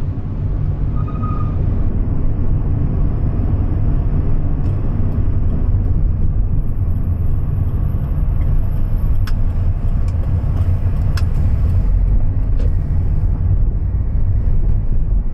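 Steady low rumble of a car driving along city streets, heard from inside the moving car, with a few faint clicks in the second half.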